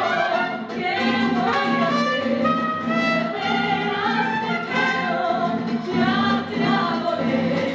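Live mariachi band playing a ranchera: trumpets and violins carry the melody over strummed guitar, with a woman singing into a microphone.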